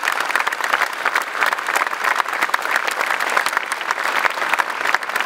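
A large crowd of thousands applauding steadily, a dense mass of hand claps.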